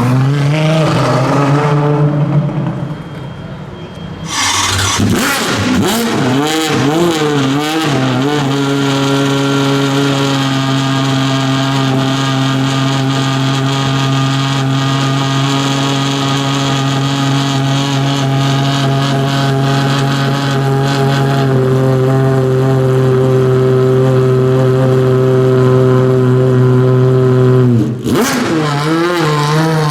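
V12 supercar engine blipped through several quick revs, then held at a steady fast idle for a long stretch, its pitch stepping down slightly partway through, and revved again near the end.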